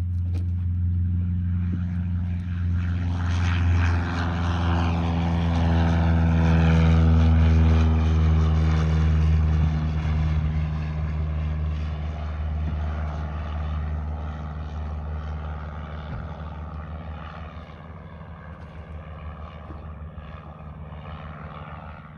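Cessna 152's four-cylinder Lycoming engine and propeller at full take-off power. It grows louder to a peak about seven seconds in, with the pitch dropping as the plane passes, then fades steadily as it climbs away.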